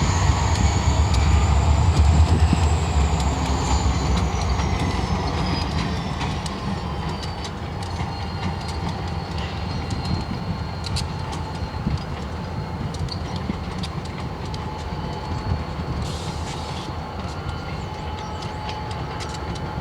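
Freight train with diesel locomotives rolling slowly past: a deep engine rumble, high wheel squeal that rises then falls in pitch, and clicking of wheels over rail joints. The rumble is loudest in the first few seconds, then fades as the train moves away.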